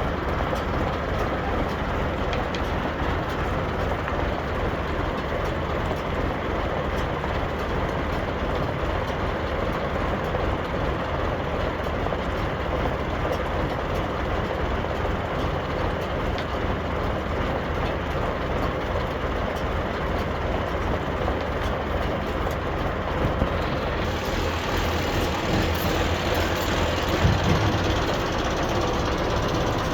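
Claas Variant 360 round baler running on a tractor's drive, with the tractor engine: a steady mechanical running noise. About 24 s in a brighter hiss joins it, and a few short knocks come near the end.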